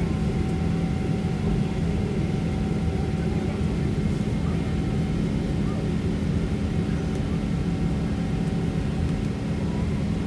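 Boeing 777-300ER jet engines running with a steady, even drone and a constant low hum, with no rise or fall in level.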